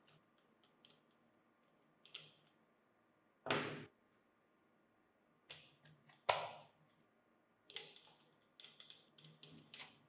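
Scattered clicks and knocks of small hard objects being handled, with two louder knocks, one about three and a half seconds in and one a little after six seconds, and a quick run of small clicks near the end.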